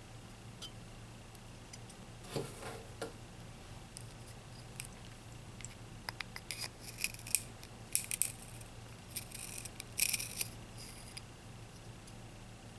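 Small plastic toys and packaging being handled: scattered clicks and short rustling scrapes, busiest in the second half.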